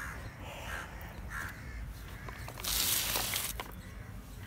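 A crow cawing three times in quick succession, then a loud rustle of plants being handled lasting about a second.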